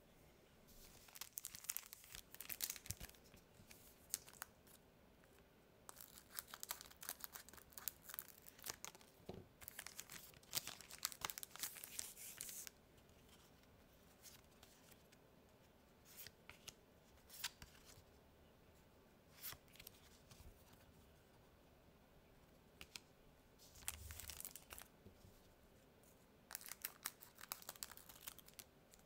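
Quiet crinkling and tearing of foil booster-pack wrappers as Pokémon mini packs are handled and opened, in bursts with gaps of scattered small ticks between. Near the end, scissors snip a pack open amid more wrapper crinkling.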